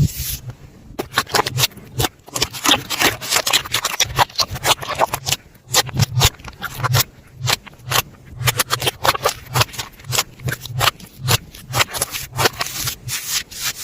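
Slime being squished and worked by hand, giving an irregular run of quick sticky clicks and pops, several a second.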